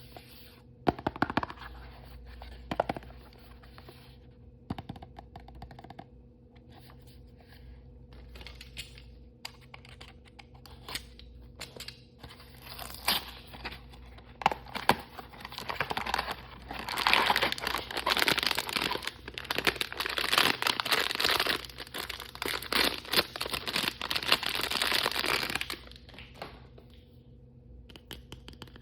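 Plastic toy packaging being handled, torn open and crinkled: a few sharp clicks early, scattered crackles, then a long spell of dense tearing and crinkling for about ten seconds that stops shortly before the end.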